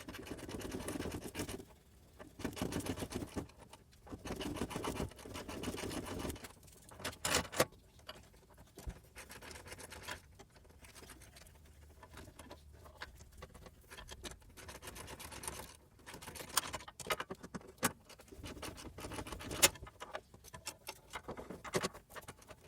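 Ratchet wrench clicking in bursts as the sway bar bushing bracket bolts are drawn tight, with scattered sharper clicks and knocks of tools on metal.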